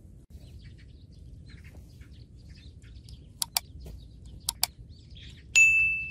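Faint bird chirping in the background. Two quick pairs of sharp mouse-click sound effects from a subscribe-button animation come after it, then a bright bell ding that rings on near the end.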